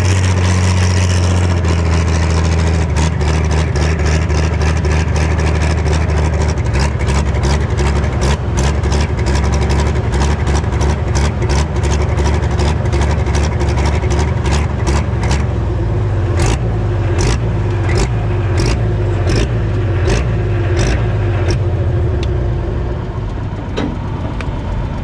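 Pro stock pulling tractor's diesel engine running at a steady speed, its pitch dropping a little about two seconds in and shifting again past the middle. A rapid series of sharp clicks or pops runs over it and thins out near the end.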